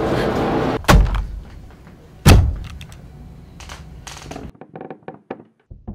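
A loud rushing noise cuts off abruptly, then two heavy thuds about a second and a half apart, the second louder, each with a low boom after it. Quieter, scattered knocks follow.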